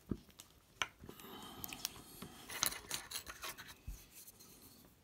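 Small plastic and metal parts of a shotgun-shell survival kit being handled as its contents are opened up. There is a low knock at the start and a sharp click just under a second in, then a few seconds of scraping and rubbing with many small clicks, and another low knock near the end.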